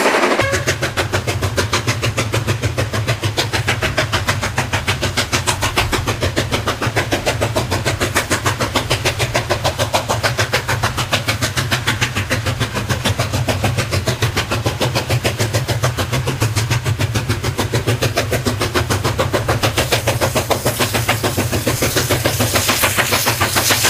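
Chinese QJ-class steam locomotive working hard under load: a loud, fast, even beat of exhaust chuffs over a steady low rumble.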